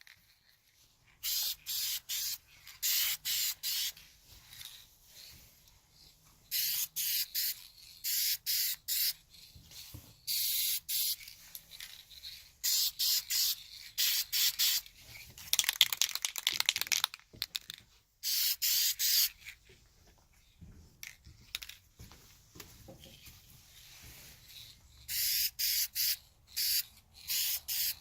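Dupli-Color Perfect Match aerosol spray paint can hissing in short bursts, grouped into quick runs of sprays with pauses between, as light coats go on. A few of the sprays are longer, held for about a second.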